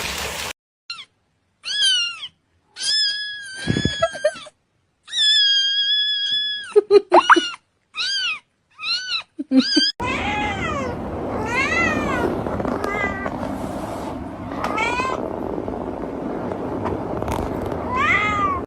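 A cat meowing again and again: short meows that rise and fall, and a couple of longer, held ones. About ten seconds in, the background turns to a steady noise and more meows follow.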